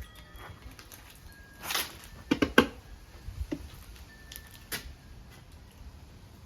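A steel tire tool prying the old dry-rotted tire off a motorcycle wheel rim: scattered knocks and clicks of metal against the rim and rubber, a brief scrape, and the sharpest knocks a couple of seconds in.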